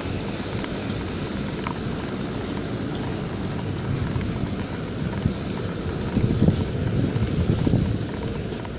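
Wind blowing across the microphone on the open deck of a very large crude oil carrier under way, a steady rush with gusts that grow a little stronger in the second half.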